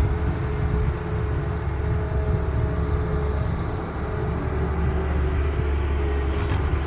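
Heavy diesel construction machinery running steadily, a deep low rumble with a faint steady whine above it.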